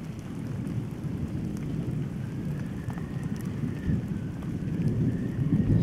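Cinematic ambient rumble: a steady, deep, noisy roar like distant thunder, with a faint thin wavering tone coming in about two seconds in.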